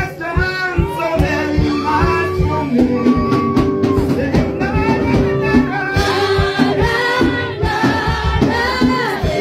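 A man and a woman singing in turn through microphones over backing music with a steady beat.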